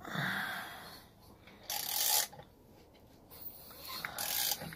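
Ratchet wrench clicking in two short runs, one about two seconds in and one near the end, as the crankshaft of an LC8 engine is turned over by hand to bring a piston up to top dead centre. There is a brief rustle at the start.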